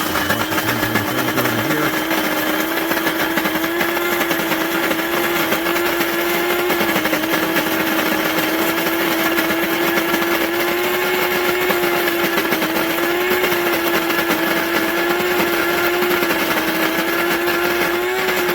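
Electric burr coffee grinder running its grind cycle, its motor driving the burrs through coffee beans with a loud, steady whine whose pitch wavers slightly.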